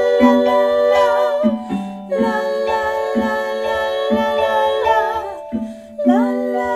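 Women's voices singing held notes in close harmony over a plucked accompaniment that keeps a steady beat of about two notes a second. The held chord breaks off about two seconds in and again near the end before the voices come back in.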